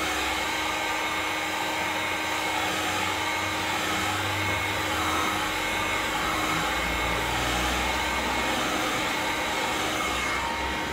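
Handheld Gamma electric heat gun running steadily, its fan blowing hot air onto a flattened sheet of PVC pipe to soften it for moulding.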